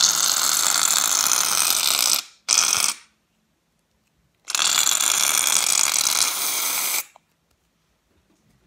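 Aerosol can of shaving foam spraying in three hissing bursts: a long one, a short one, then after a pause of about a second and a half another long one. The can is nearly empty.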